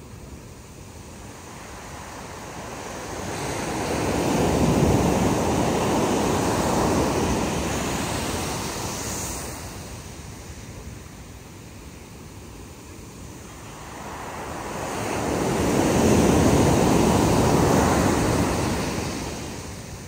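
Ocean surf breaking and washing up a sandy beach. Two waves swell and fade, the first peaking a quarter of the way in and the second a little past three quarters.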